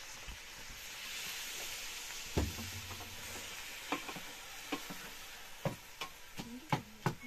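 Food sizzling in a metal pot over a wood fire, a hiss that fades after about three seconds. A metal ladle stirs the pot, knocking and scraping against its side about once a second.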